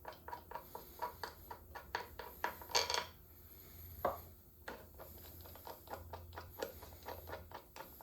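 Irregular metallic clicks and clinks as hand tools and metal parts knock against a D22 air brake valve while it is taken apart on a workbench, with a louder flurry of clatter a little before halfway.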